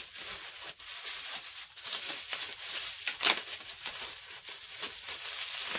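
Bubble wrap being picked at and peeled off a boxed eyeshadow palette: irregular plastic crinkling and crackling with small clicks, and one sharper crackle about three seconds in.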